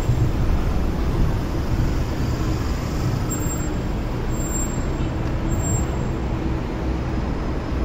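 Steady low rumble of road traffic, with no separate events standing out.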